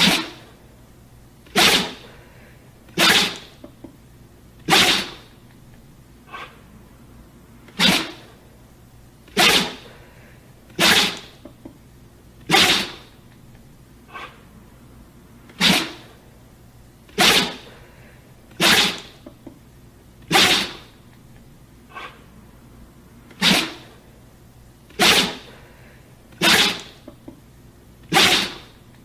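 A dog sneezing again and again, one sharp sneeze about every one and a half seconds, in runs of four with a short pause between runs. A faint short sound comes just before each run.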